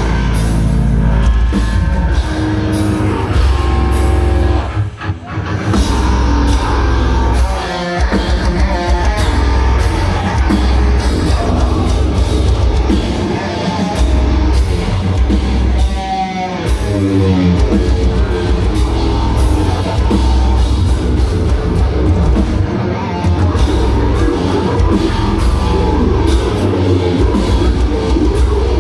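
Heavy metal band playing loud, with distorted guitars and a drum kit and heavy low end. It breaks off briefly about five seconds in and again about eight seconds in.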